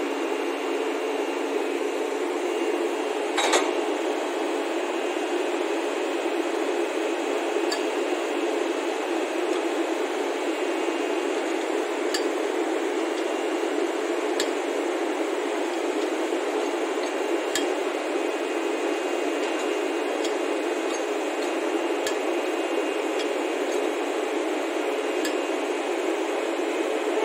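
A steady whooshing hum from a WAP-7 electric locomotive standing coupled to a coach, with a few faint light clicks spread through it.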